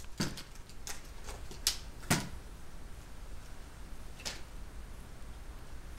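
A run of sharp, irregular clicks and knocks: about seven in the first two seconds and one more about four seconds in.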